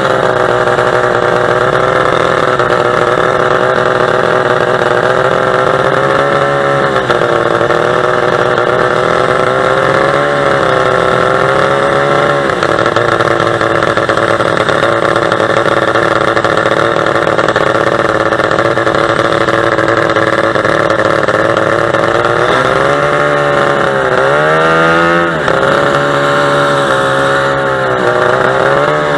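A 45 hp two-stroke boat engine running hard at a steady high pitch. The pitch dips briefly and climbs back several times, with a cluster of dips near the end.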